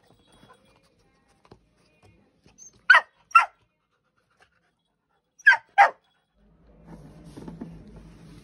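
Labrador puppy barking: two pairs of short, sharp barks, the second pair about two and a half seconds after the first.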